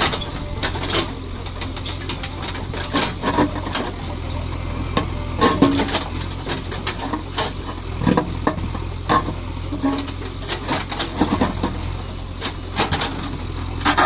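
JCB 3DX backhoe loader's diesel engine running steadily while the backhoe bucket digs into stony ground, with irregular knocks and scrapes of rock against the steel bucket.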